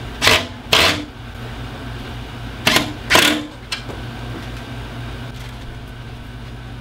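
Cordless drill driving screws into a hairpin leg's mounting plate in short bursts: two quick pairs, one right at the start and one about three seconds in, over a steady low hum.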